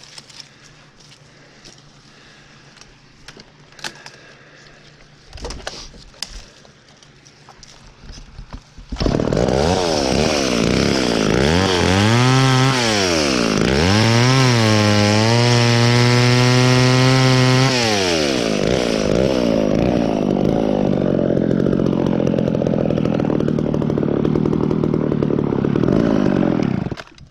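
A chainsaw starts up about a third of the way in. It revs up and down a few times, holds at high revs for a few seconds, then drops back to idle and stops near the end. Before it there are only faint clicks and rustles.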